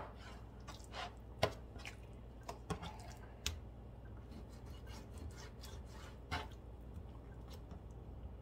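Kitchen knife slicing raw beef on a plastic cutting board: a scattering of light, irregular knocks as the blade strikes the board, over a faint steady low hum.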